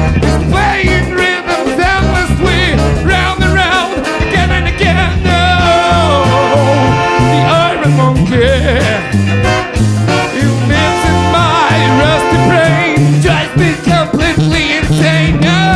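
Live brass band playing an instrumental passage: saxophones, trumpet and trombone over a sousaphone bass line, with drums and electric guitar, in a swing/ska groove.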